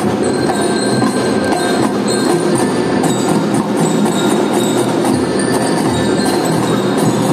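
Children's drum band playing a marching tune: snare and bass drums beating under the ringing tones of mallet-struck bells, steady and loud throughout.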